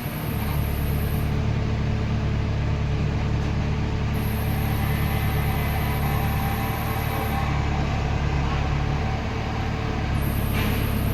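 Heavy diesel engine running steadily with a low, even drone, picking up slightly about half a second in, with a few faint knocks near the end.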